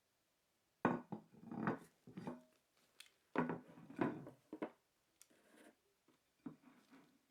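A plastic microwave lid and a large ceramic plate being handled: a run of sharp knocks and short clatters as the lid is moved against the plate.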